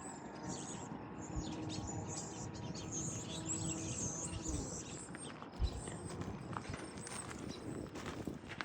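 Faint bird chirps repeating over quiet outdoor background noise, with one soft low knock a little past halfway.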